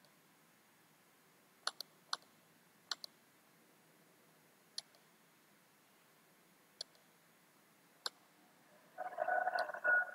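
Computer mouse clicking: about eight short, sharp clicks scattered through the span, some in quick pairs. Near the end a faint, steady hum-like sound starts.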